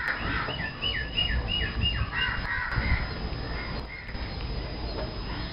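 Thari/Mewati bull's courtship call, a bird-like jeering: a quick run of about six short, high, falling notes in the first couple of seconds, over steady low background noise.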